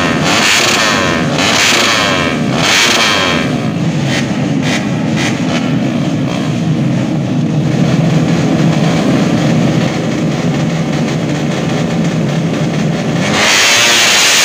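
A pack of motocross bikes revving at the starting line. Early on the throttles are blipped up and down, then the engines are held at steady high revs. Near the end the sound jumps louder as the bikes go to full throttle off the line.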